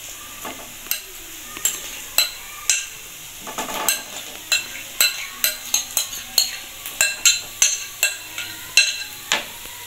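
A spoon scraping and clicking against a glass bowl and a non-stick frying pan as mashed potatoes are scooped into the pan, over a soft sizzle of onions frying in oil. The clicks are sparse at first and come several times a second from about halfway through.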